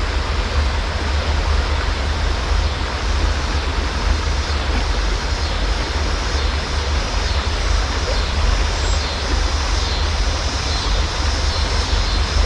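Steady rush of river water pouring over a small rapid, with a constant low rumble of wind buffeting the microphone.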